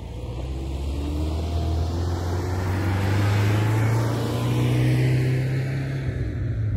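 Vehicle engine noise: a steady low hum that grows louder and slowly rises in pitch, with a sweeping hiss over it.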